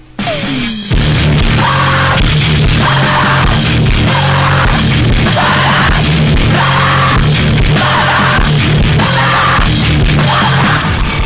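Screamo band recording: after a short falling glide, loud distorted guitars, bass and drums come in about a second in, with screamed vocals recurring in bursts about every second and a half.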